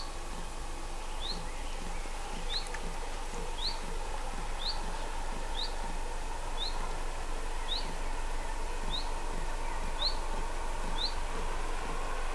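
A small bird calling one short, high, rising chirp about once a second, over steady outdoor background noise. Underneath, a faint distant train sound slowly grows towards the end as a steam locomotive approaches far down the line.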